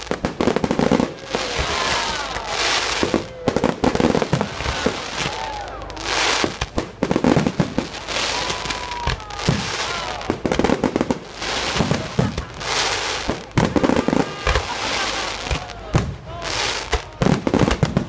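Aerial fireworks display: shells bursting in quick succession, with many sharp bangs and stretches of crackling hiss between them.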